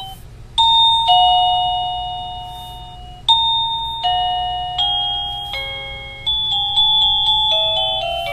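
V-Resourcing wireless doorbell receiver playing its electronic chimes as its selectable sounds are stepped through: a two-note ding-dong, high then low, the same ding-dong again about three seconds later, then a short tune of bell-like notes at changing pitches, each note fading away.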